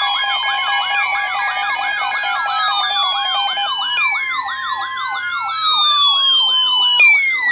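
Layered electronic siren sounds: a fast yelp warbling up and down about three to four times a second, with a falling sweep starting about every three seconds and a steady tone that cuts off about halfway through.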